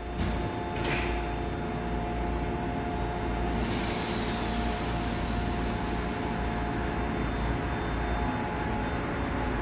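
Seoul Line 3 GEC chopper-controlled electric train at the platform, with steady humming tones over a low rumble. A loud hiss of air sets in about three and a half seconds in, and the noise builds slowly as the train gets under way.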